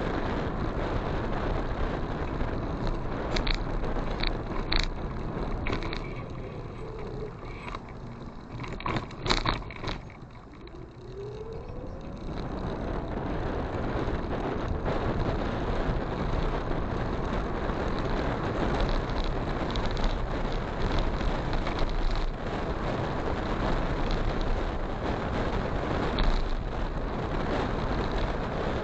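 Wind rushing over the microphone with engine and road noise while riding a motorcycle. About six seconds in it quietens, with a few knocks, then a rising engine note near eleven seconds as the bike speeds up and the wind noise builds back.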